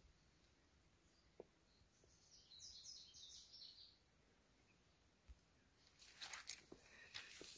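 A songbird singing faintly: a quick run of high chirps lasting about two seconds. Footsteps start up near the end.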